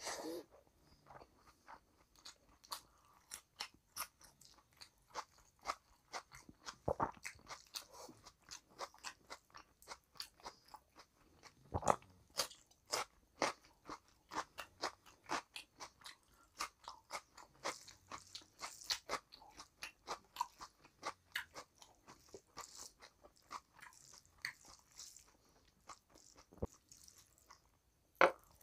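A person chewing mouthfuls of rice and curry eaten by hand: a dense run of crunches and mouth clicks, several a second, with a few louder crunches.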